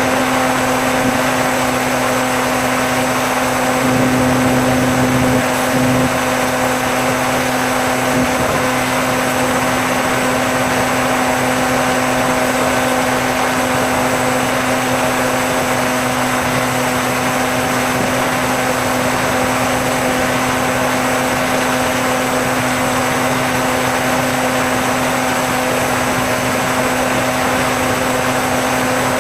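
Electric motor and propeller of a Bixler RC model plane running steadily in flight, heard close up from the plane's onboard camera: a constant buzzing hum over a hiss of rushing air, briefly louder about four seconds in.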